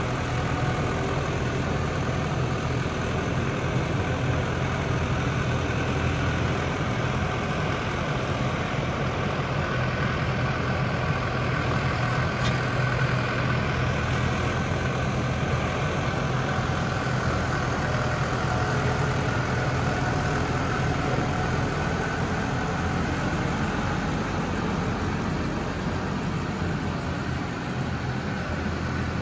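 Case IH Farmall 95C tractor's four-cylinder diesel engine running steadily while it works the front loader, scooping and lifting a grab of manure.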